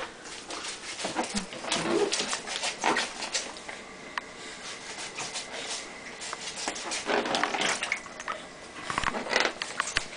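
Water splashing and sloshing in a plastic tub as a baby floating in an inflatable neck ring kicks and paddles, in irregular splashes that come thickest about two seconds in and again near the end.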